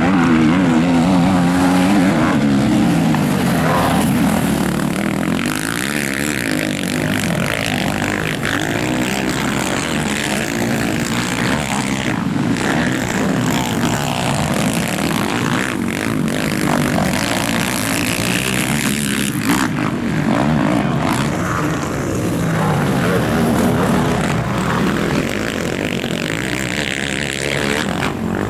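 Racing quad ATV engines revving hard and backing off over and over as they take the track's jumps and turns, the pitch climbing and dropping every second or two, with more than one engine heard at once at times.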